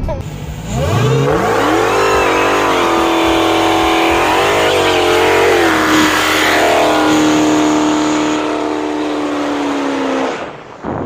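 Dodge Hellcat's supercharged 6.2-litre Hemi V8 revving up about a second in and held at high revs through a burnout, its rear tyres spinning and smoking. The pitch wavers while it is held, and the revs drop off near the end.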